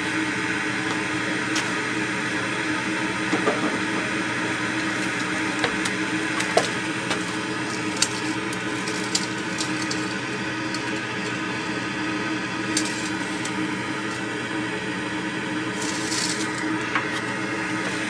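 Power-vent water heater's exhaust blower running out of its 3-inch side-wall vent with no suppressor fitted: a steady drone made of several steady tones, the unsilenced exhaust noise the owner finds far too loud. A few light clicks and taps come from the vent's PVC elbow being handled.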